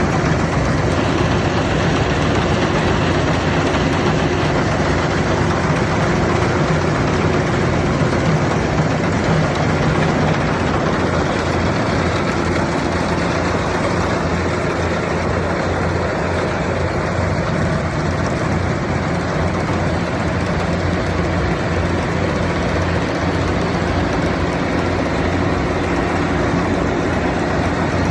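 Engine of a rice harvesting machine running steadily, a constant low drone with mechanical noise over it.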